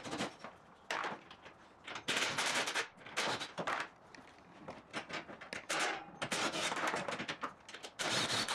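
Hand socket ratchet clicking in short bursts of rapid clicks, with pauses between strokes, as bolts are backed out.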